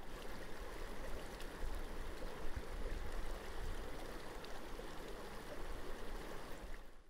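Steady rush of moving water, with a low rumble underneath.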